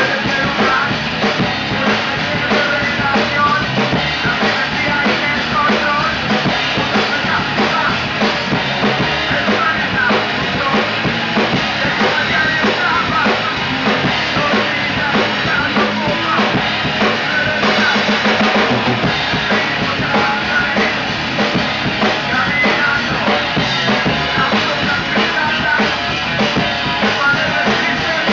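A band playing, with the drum kit to the fore: bass drum and snare keep a steady beat under the other instruments.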